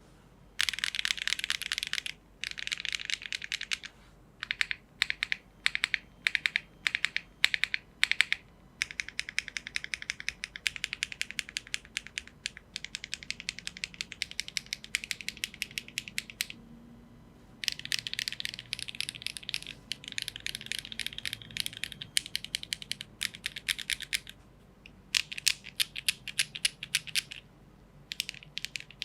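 Typing on a Geonworks F1-8X V2 mechanical keyboard with an aluminium plate, HMX Catmint switches and GMK Trackday keycaps: fast runs of keystrokes broken by brief pauses, the longest about a second, just past the middle.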